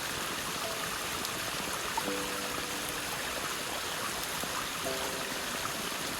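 Steady rushing of stream water, an even hiss that holds at one level throughout.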